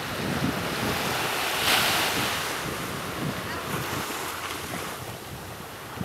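Gentle sea surf washing in the shallows, with wind buffeting the microphone; the wash swells briefly about two seconds in.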